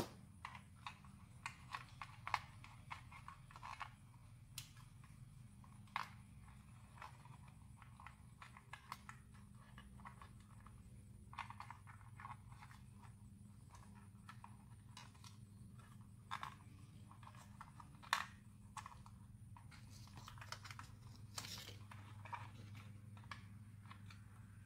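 Scattered light clicks and taps of hands handling wires and plastic plug connectors against a plastic RC buggy chassis, over a steady low hum.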